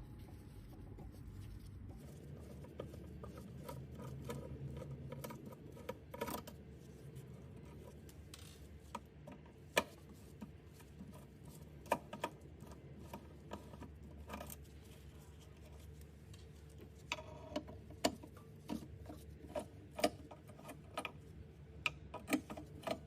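Screws being undone from a metal inverter cover with a screwdriver: scattered small clicks and taps of the tool and screws over a faint low hum, with a brief steady whir about seventeen seconds in.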